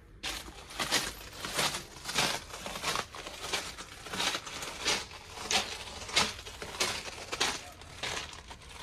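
Footsteps on loose pebble gravel at a steady walking pace, about three steps every two seconds.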